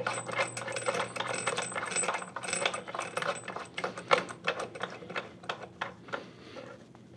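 Steel hex bolt and flat washer clicking and clinking against the pillow block housing foot as the bolt is spun in by hand and loosely tightened. A quick run of small metallic clicks that thins out over the last couple of seconds.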